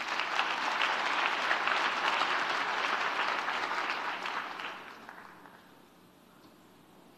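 Audience applauding, the clapping fading out about five seconds in.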